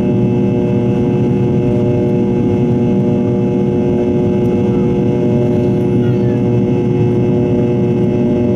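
Rolls-Royce Tay turbofan of a Fokker 70 running at steady power in flight, heard from the cabin right beside the engine: a constant loud drone with a few fixed tones running through it.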